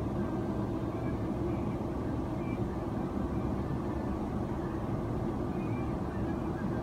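Steady cabin noise of an airliner in flight, heard from inside the passenger cabin: an even, low drone of engines and rushing air.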